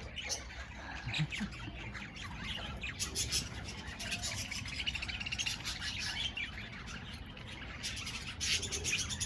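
A flock of budgerigars chattering: a continuous jumble of chirps, squawks and buzzy warbling, with brighter bursts of calls about three seconds in and near the end.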